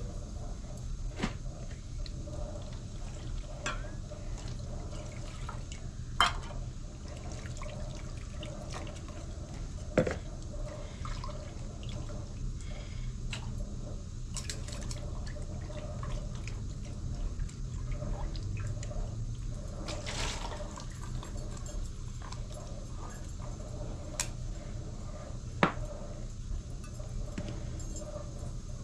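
Dishes being washed by hand in a plastic basin of water: water splashing and dripping as a small metal bowl is rinsed, with a few sharp clinks of metal, three of them louder than the rest.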